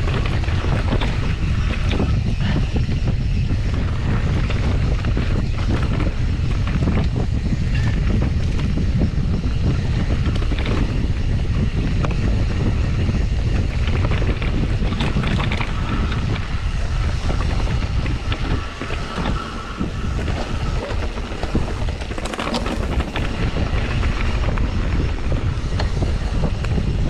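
Riding a mountain bike along a dirt singletrack trail: wind buffeting the camera microphone, with the tyres rumbling over the ground and the bike rattling and knocking over bumps.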